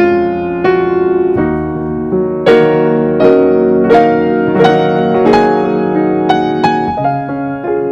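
Background piano music, a simple melody of struck notes over sustained chords.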